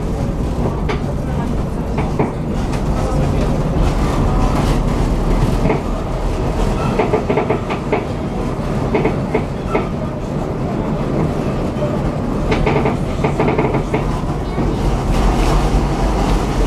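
Tram running along its track with a steady low rumble of wheels on rail and scattered clicks and knocks, some coming in short clusters.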